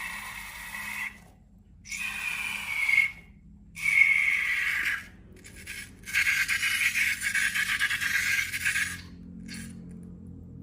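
Air hissing and squealing out of a balloon's stretched neck in about five bursts, each under a second to about three seconds long, some sliding slightly down in pitch.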